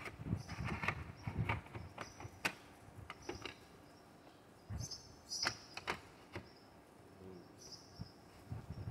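Scattered clicks and knocks of a compact router being handled and adjusted on its plunge base, with the motor not running. Short, faint high-pitched chirps come and go behind them.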